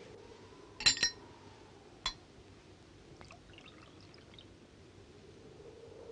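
Glass clinking against glass: two sharp ringing clinks about a second in and a lighter one a second later, then faint pouring of red liquid from a cut-glass decanter into a small glass.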